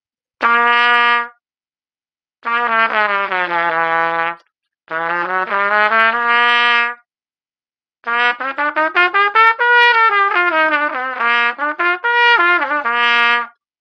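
Plastic pTrumpet played with a metal Bach Artisan 1.5C mouthpiece: one short held note, then a slow bend sliding down in pitch and another sliding up, then a long run of quick tongued notes climbing and coming back down.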